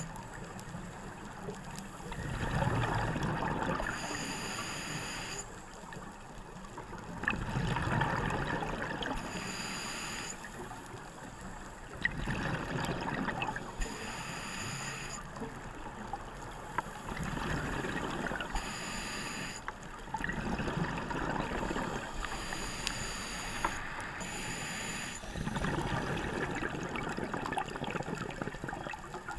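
Scuba regulator breathing, heard through the camera's underwater housing: a hissing inhale with a faint high whistle, then a longer burst of bubbling exhaust, about six breaths in a steady rhythm.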